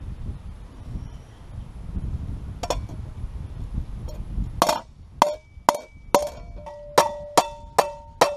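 Hammer blows on a warped steel saw blade laid on an anvil, hammering it back flat: one blow about two and a half seconds in, then from about halfway a steady run of blows about two a second, each leaving the steel blade ringing with a clear metallic tone.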